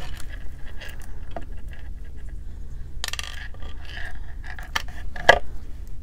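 Light clicks, clinks and scraping of small metal jewelry findings and pliers being handled, with a sharper click a little past five seconds in.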